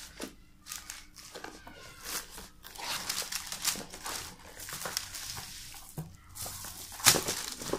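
A cardboard tablet box and its plastic wrapping being opened and handled: irregular rustling, crinkling and scraping of card and plastic, with a sharper knock near the end.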